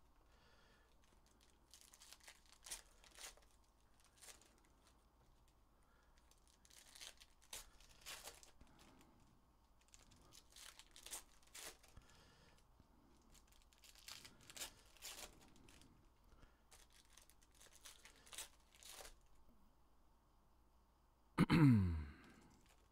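Foil trading-card packs being torn open and the cards shuffled by hand: faint crinkling tears and rustles scattered throughout. Near the end a loud, brief sound glides steeply down in pitch.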